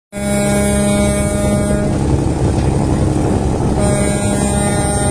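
Riverboat diesel engine running steadily under way: a loud, constant low hum with steady higher tones, some of which drop out for about two seconds midway.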